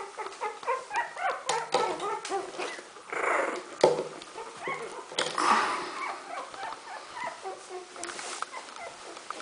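A litter of two-week-old smooth fox terrier puppies squeaking and whimpering, many short high calls overlapping several times a second. Two brief rustles and a single sharp knock about four seconds in.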